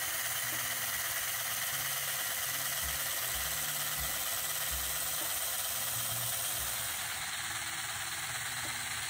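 Tri-ang Railways R.54S Pacific model locomotive chassis running at speed on a rolling road: its small electric motor and gearing give a steady, even whirr. Soft background music plays underneath.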